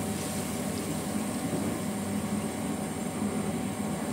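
Steady bubbling and hiss of a wok of curry-spiced water boiling on a gas burner, with no sharp knocks or scrapes.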